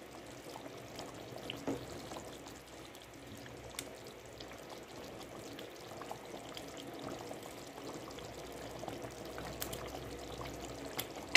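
A wooden spoon stirring a watery vegetable curry simmering in a large aluminium pot: steady liquid sloshing, with a few light knocks and a sharper one near the end.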